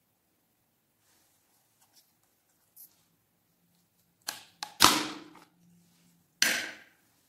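Thin plastic slime tub having its snap-on lid pried off: a couple of sharp plastic clicks about four seconds in, then a loud crackle of flexing plastic, and another shorter crackle about a second later.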